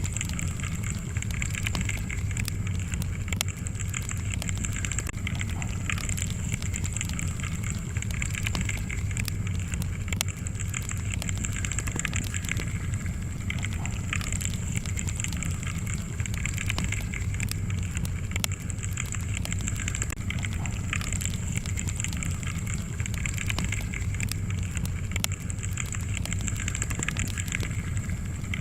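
Wood fire crackling in a fireplace: a steady low rumble of flames with frequent small, sharp pops and crackles.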